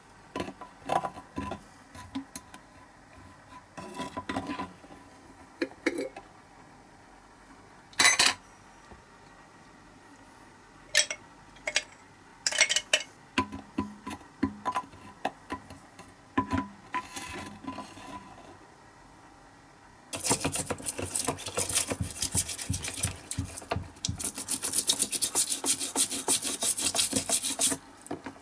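Scattered light clicks and knocks of small metal parts being handled, then, about two-thirds in, a toothbrush scrubbing loosened paint off a small diecast metal part in a plastic tray: a fast, continuous dry scratching.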